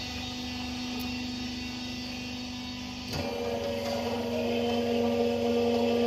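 Steady hum of a running machine, one low tone throughout, with higher tones joining and the sound growing louder after a click about three seconds in.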